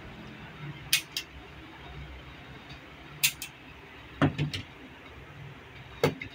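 Sharp metallic clicks from a semi-automatic pistol being handled, coming in four quick groups of two or three clicks each, the last as the pistol is laid down on a workbench among other guns.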